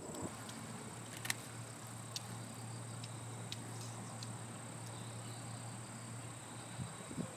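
Insects singing: a steady, high-pitched continuous trill, with a few faint clicks now and then.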